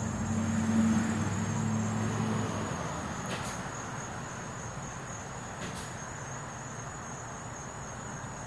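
Steady high-pitched insect trill, with a low engine hum that fades out after about two and a half seconds. Two faint clicks come in the middle.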